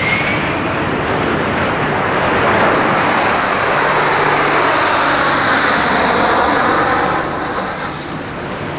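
Harrier jump jet's Rolls-Royce Pegasus turbofan at full thrust during a vertical takeoff: a loud, steady rush of jet noise that eases a little about seven seconds in.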